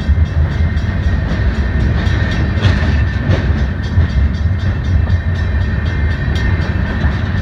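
A Long Island Rail Road work train's gondola rail cars rolling past at close range: a loud, steady rumble of steel wheels on the rails with rapid clicking. A steady high tone runs underneath.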